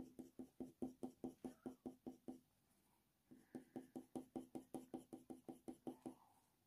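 Faber-Castell Polychromos colour pencil making quick short strokes on hot-press watercolour paper: a faint, even run of light taps, about five a second, that stops for about a second midway and then starts again.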